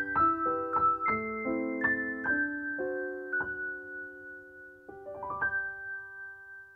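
Background piano music: a run of struck notes and chords, then after a short pause a last chord rolled upward about five seconds in that rings and fades out near the end.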